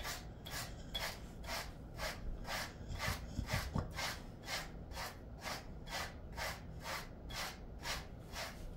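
Pet grooming brush raking through a Jindo mix dog's thick coat in quick, even strokes, about two to three a second.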